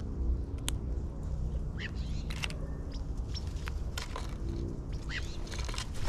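Magpies feeding at a platform feeder: scattered sharp taps and clicks, with a few short chirping bird calls, over a steady low background hum.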